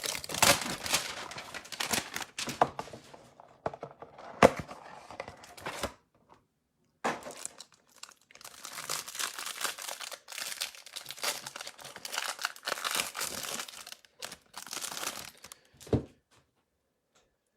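A 2021 Donruss Football trading-card hanger box being torn open, its wrapping crinkling and tearing in two long stretches with a short pause between. A sharp knock comes about four seconds in and a low thump near the end.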